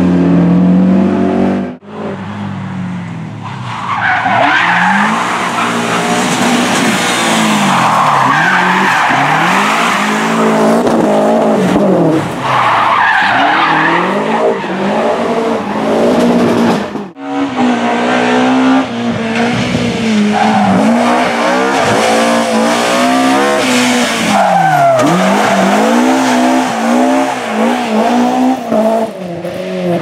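Rally cars driven hard through bends: first a Subaru Impreza's flat-four, then, after a cut about halfway through, a BMW M3 E30's four-cylinder. Each engine revs up and drops back through gear changes, with tyre squeal as the cars slide.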